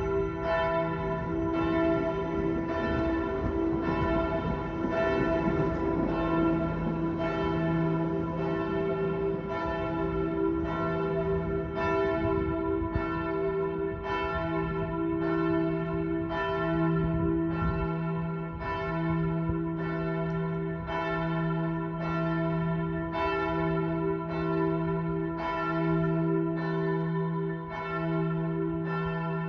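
Church bells ringing, with strokes coming about one and a half times a second and the ringing tones carrying on between them. A low rumble lies under the first several seconds.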